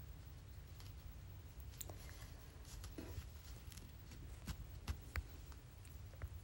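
Faint clicks and rustling of a needle and embroidery floss being pulled through 14-count Aida cloth, with a handful of sharp ticks spread over a few seconds above a low hum.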